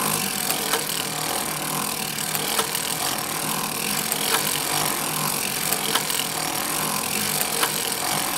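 Hand-cranked circular sock knitting machine running at a steady cranking speed, knitting rows: a continuous mechanical rasp of the cam carriage working the needles, with light ticks scattered through it.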